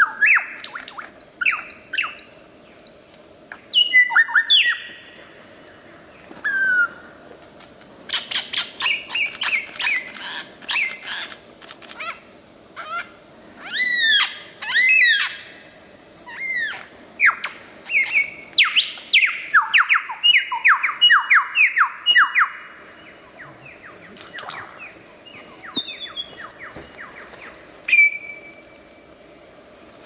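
Superb lyrebird singing: a loud, ever-changing run of whistled sweeps and calls, with a fast series of repeated falling notes about two-thirds of the way through, typical of its mimicking song.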